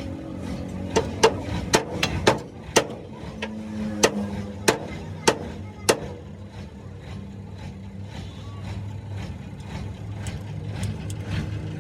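Hammer blows on the steel of a truck chassis: about ten sharp strikes roughly half a second apart in the first half, then lighter taps, over a steady low hum.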